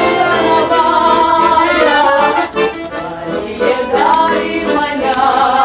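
Accordion playing a folk dance tune, a continuous melody over sustained chords.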